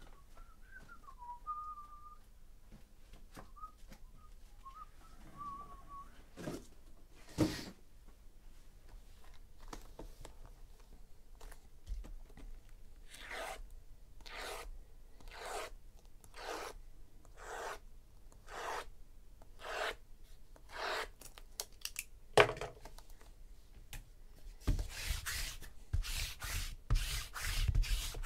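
Shrink-wrapped trading-card hobby boxes being handled and slid against each other. There are a few faint squeaks at first, then more than a dozen short swishing rubs a little under a second apart, turning into fast, steady rubbing near the end.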